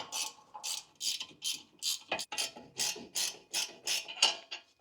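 Ratcheting spanner clicking in quick back-and-forth strokes, about three a second, as a wheel-hub bearing assembly's mounting bolt is undone.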